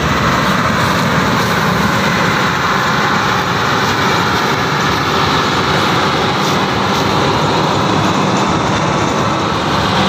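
New Holland combine harvester running steadily while harvesting rice: a loud, even drone of engine and machinery.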